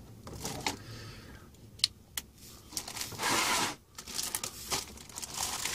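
A plastic bag of model-kit parts is handled and torn open: a couple of light clicks, then a louder tearing rip about three seconds in, with crinkling rustles around it.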